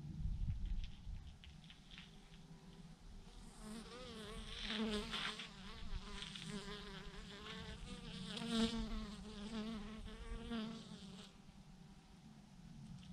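Bees from a swarm clustered on a branch buzzing close by, their wavering hum swelling and fading as individuals fly past, loudest between about four and eleven seconds in. A brief low rumble comes at the very start.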